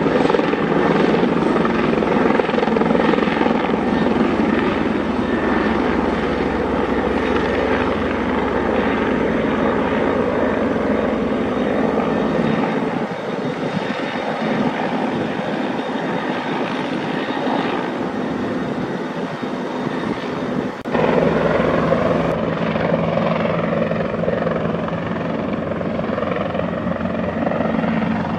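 Bell 412 four-bladed twin-engine utility helicopter flying past, with a steady drone of rotor and turbine noise. About three-quarters of the way through, the sound jumps abruptly louder and fuller.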